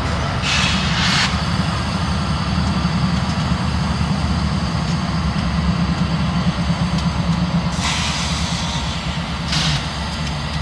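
Diesel freight locomotives running with a steady low engine drone. Compressed air hisses twice: briefly about half a second in, and longer from about eight seconds in.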